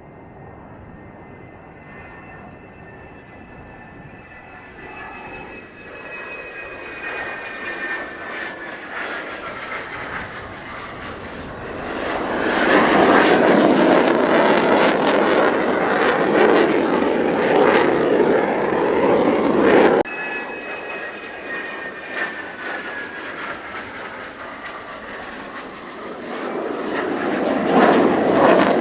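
Mitsubishi F-2 fighter's jet engine running as the aircraft flies in: a whine that glides slowly down in pitch while the roar swells to loud about twelve seconds in. The sound breaks off suddenly about two-thirds of the way through, and another pass builds the same way, gliding whine and swelling roar, near the end.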